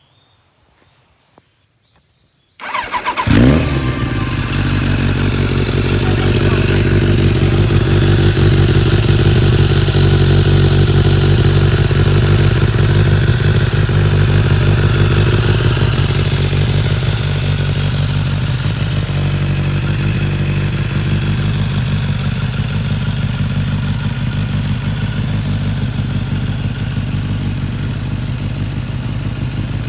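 Kawasaki ZZR1100 inline-four with a Tech Surf titanium slip-on silencer starting up: a brief crank about two and a half seconds in, a quick rev as it catches, then a steady idle through the silencer, easing slightly in the second half.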